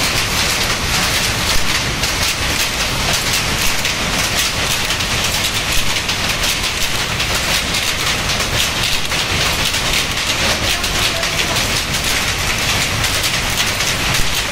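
Power loom with an electronic jacquard head running at speed: a loud, continuous, fast mechanical clatter of the loom and its jacquard hooks, steady throughout.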